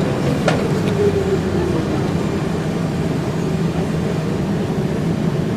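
Hawker Siddeley CLRV streetcar heard on board, its motor whine falling in pitch over the first two seconds as it slows, over a steady low rumble. A sharp click comes about half a second in.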